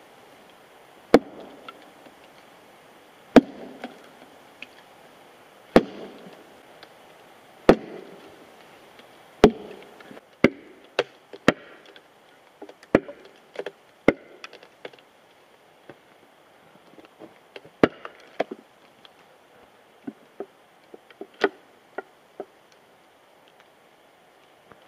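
Heavy hand-carved wooden maul striking a steel wedge driven into a log: five loud blows about two seconds apart. After that come quicker, lighter knocks and scattered small cracks as the log splits open.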